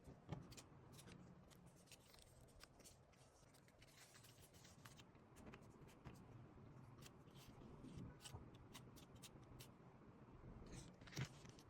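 Faint paper handling: soft rustles and scattered light clicks and taps as a handmade paper blind bag is opened and handled.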